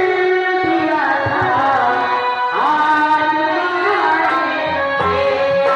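Bhojpuri folk song performed live: a singing voice over held instrumental notes and drum strokes.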